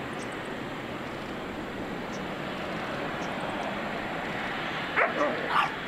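Distant, steady jet engine noise from a Boeing 777 freighter taxiing on the runway. Near the end, a short, louder call of three quick pitched sounds rises above the engine noise.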